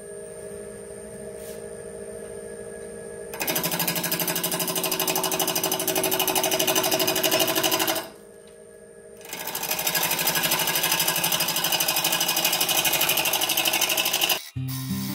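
Wood lathe motor running steadily, then a turning tool is pressed into the spinning walnut blank, giving a loud cutting noise with a fast, even rattle. The cut stops for about a second and starts again, then cuts off near the end as music comes in.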